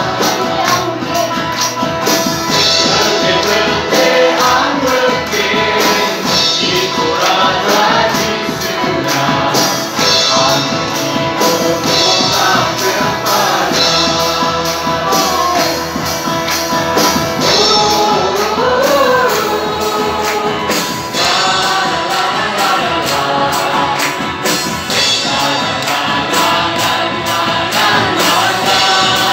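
Live gospel worship song: a group of voices singing together into microphones over acoustic guitar and a steady drum and percussion beat, amplified through a PA.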